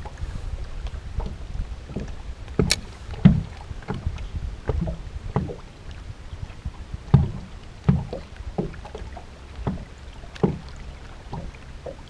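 Small waves slapping against the hull of a bass boat sitting still on the water, making irregular hollow knocks about one or two a second over a low steady rumble. There is one sharper click about three seconds in.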